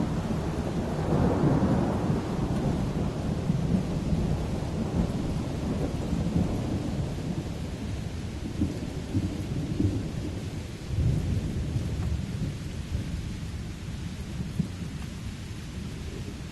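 Steady rain with thunder rumbling: a loud roll fading over the first several seconds, and another low rumble about eleven seconds in.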